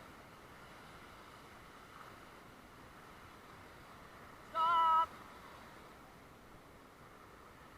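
Steady rush of river water, with one short, loud pitched call or cry lasting about half a second, a little past halfway through.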